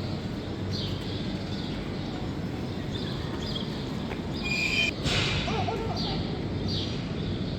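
Indistinct chatter of a busy crowd of visitors, with short high chirps repeating about once a second and a brief louder burst of noise about five seconds in.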